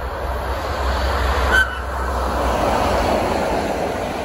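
Electric train with a Re 4/4 locomotive passing, its blue coaches rolling by with a steady rumble that grows louder as they come close. A low hum fades out about halfway through, and a brief high tone sounds once about a second and a half in.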